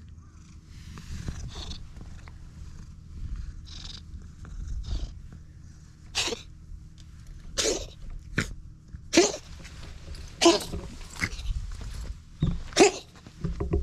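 Orange-and-white stray cat purring low while being stroked, then giving a series of short, loud meows about once a second through the second half.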